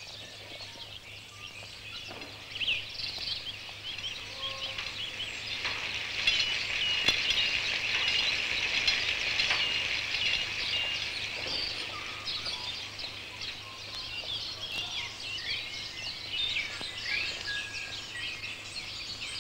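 Many small birds chirping and twittering together, busiest in the middle, over a faint steady low hum.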